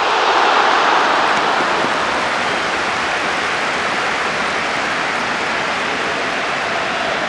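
Football stadium crowd: a dense, steady noise of thousands of voices, a little louder during the first second or so.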